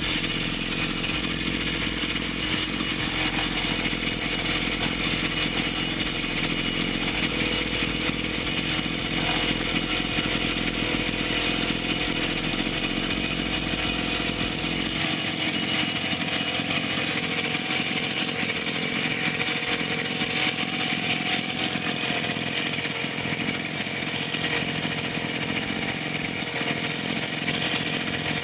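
Rebuilt Honda UMK40 two-stroke brush cutter engine running steadily on test, with no load on it.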